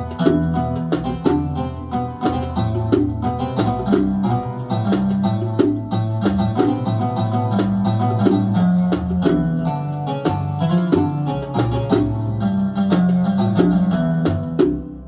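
Yamaha PSR-A5000 arranger keyboard playing an instrumental Gulf sawt melody with a bass line over a steady mirwas drum rhythm. The music stops near the end, the last notes ringing out briefly.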